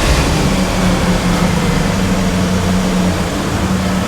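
A truck engine running steadily with an even low hum.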